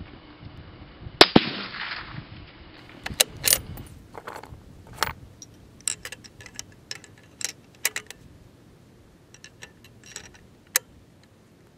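A single rifle shot from a bolt-action rifle about a second in, with a long fading echo, followed by a string of fainter sharp metallic clicks and clacks at irregular intervals as the rifle is handled.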